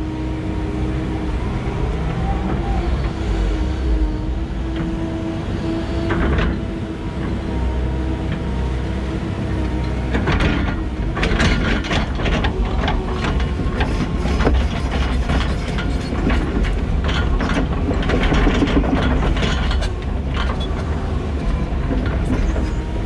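Komatsu 170 hydraulic excavator running steadily while its bucket drags and scrapes packed topsoil back, with bouts of metallic clanking and rattling from the bucket and machine, heaviest about halfway through and again near the end.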